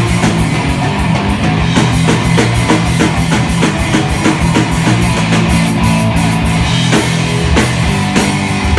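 Live rock band playing loud, with electric guitar, bass and fast drumming, in a passage between vocal lines.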